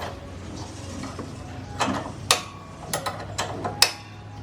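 Hand tools working on metal car parts: a handful of sharp metallic clicks and knocks, most in the second half, over a steady low hum.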